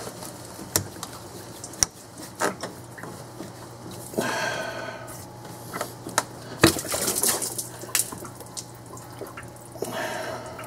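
Engine coolant dripping and splashing as the lower radiator hose is worked off, with scattered sharp clicks and knocks from the hose and tools. There is a louder stretch about four seconds in and a sharp knock soon after.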